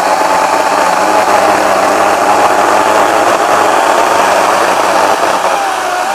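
Ryobi 40V HP brushless 20-inch cordless chainsaw (RY405110) cutting under load through a thick, freshly fallen oak log. Its electric motor gives a steady whine that wavers slightly in pitch as the load changes, over the rasp of the chain cutting wood.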